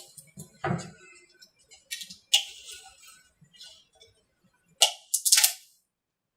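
Hand tools clinking, knocking and scraping on hard molds as the mold halves are worked apart: a series of sharp clicks and scrapes, with a knock under a second in and the loudest scraping clinks near the end.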